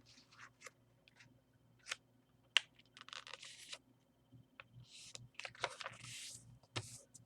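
A sheet of origami paper being handled, folded and creased: faint scattered crinkles, taps and rustles, with a sharper tick about two and a half seconds in and denser rustling in the second half.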